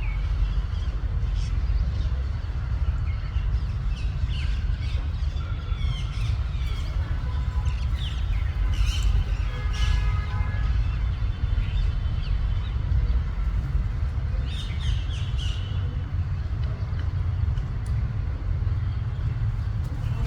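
Parrots calling in scattered bursts, thickest in the first half and again about three-quarters through, over a steady low rumble.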